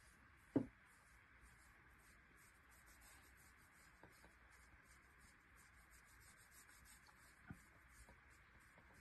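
Fingers scratching through a dog's curly neck fur: a faint soft rubbing. A short thump comes about half a second in and a smaller tap near the end.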